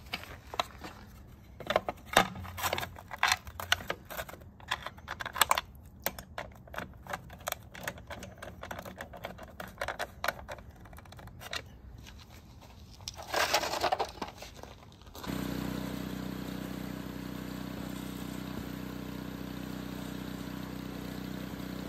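Clicks, taps and scrapes of a screwdriver and plastic parts as the guard over the chute drive motor is screwed back on, with a short rasp about 13 seconds in. About 15 seconds in, the snowblower's Briggs & Stratton engine starts and runs steadily.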